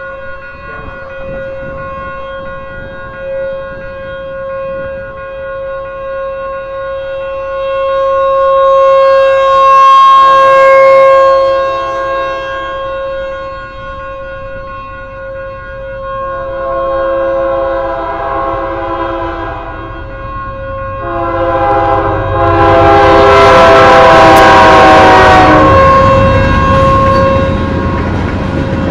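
Federal Signal Thunderbolt 1000 outdoor warning siren holding a steady tone, growing louder and fading again as its horn rotates. About halfway through a second horn-like tone joins, and near the end a train passes with its horn sounding, the loudest part.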